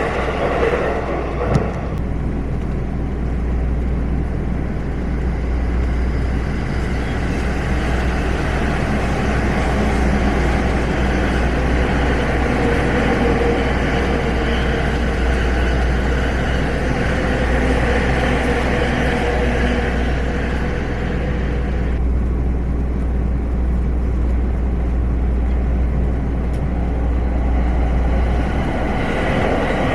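Steady rumble of vehicles running, with a strong low drone and a faint held hum partway through.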